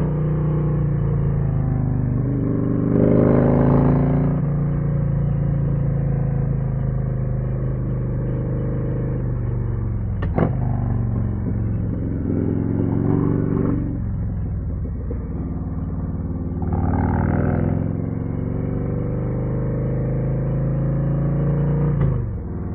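Harley-Davidson Street Glide ST's Milwaukee-Eight 117 V-twin running through a custom C3 Vtwin 2-into-1 exhaust while riding. The engine pitch rises several times under acceleration and falls back as the throttle eases. There is one sharp click about ten seconds in.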